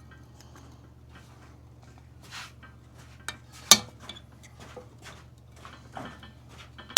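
Scattered clinks and knocks of metal parts and tools being handled, with one sharp clink a little past the middle, over a steady low hum.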